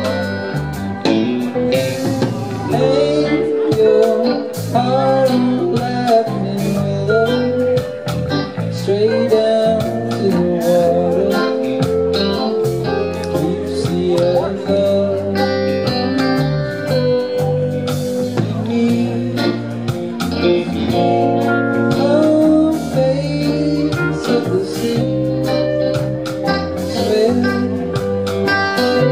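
Live rock band playing an instrumental passage: electric guitar melody over bass and drums.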